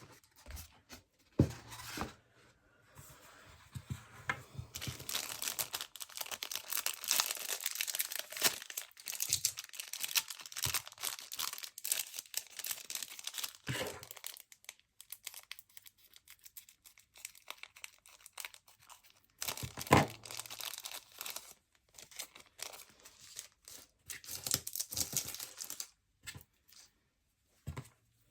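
Doll packaging being handled and torn open: crinkling and tearing in two long stretches, with scattered sharp clicks and knocks.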